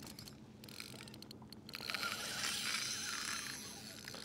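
Spinning reel's drag clicking rapidly as a hooked fish pulls line off against it, the angler suspecting an eagle ray. A quick run of clicks over the first second and a half gives way to a steadier high hiss.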